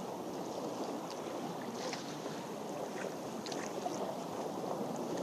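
Choppy seawater sloshing and lapping close to the microphone, with wind on the microphone and a few small splashes.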